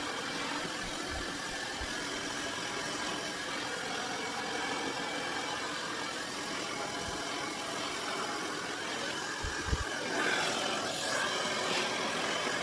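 Aria Beauty infrared ionic blow dryer running steadily, blowing air on hair. Near the end there are a couple of low knocks, and then the airflow gets a little louder.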